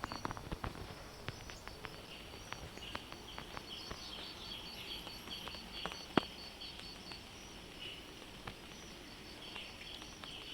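Outdoor ambience: an insect chirping in an even high pulse of about four beats a second, with bird chirps over it and scattered light ticks. A sharper tap comes about six seconds in.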